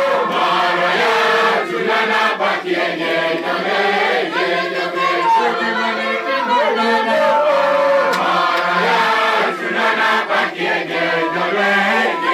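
A church congregation singing together in many voices, a chant-like song carried by the whole crowd.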